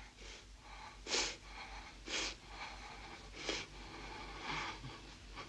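A woman's sharp, breathy gasps, four of them about a second apart.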